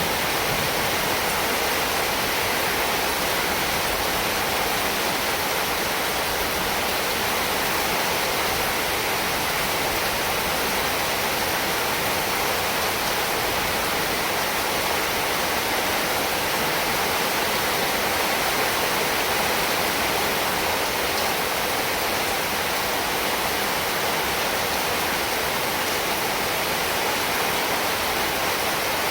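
Heavy rain falling steadily, an even, unbroken hiss with no separate drops or gusts standing out.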